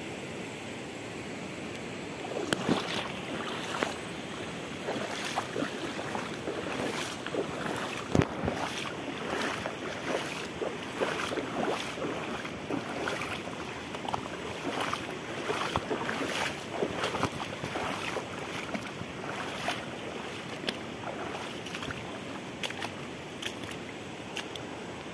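Steady rush of a flowing river. From about two and a half seconds in, it is joined by irregular splashing steps and knocks from footsteps through shallow water and wet mud at the river's edge.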